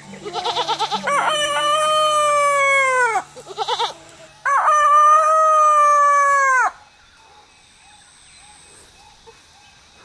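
A rooster crowing twice. Each crow is a few short stuttering notes and then a long held note of about two seconds that drops away at the end.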